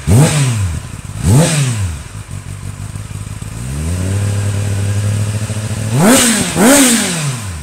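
Kawasaki Ninja ZX-10R's 998 cc inline-four revved while standing: two quick throttle blips, then a held rev of about two seconds, then two more sharp blips near the end.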